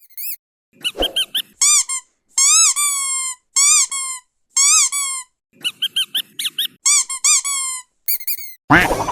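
Rubber squeaky dog toy squeezed over and over: short, high squeaks in quick clusters, each rising and falling in pitch, with brief pauses between squeezes. A harsher, noisier squeal comes near the end.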